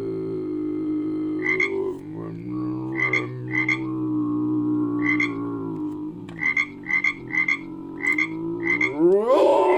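Frog calls layered into a creature sound effect: a steady low, pitched croaking drone with about ten short, sharp croaks on top at irregular intervals. Near the end a rising glide starts into a howl.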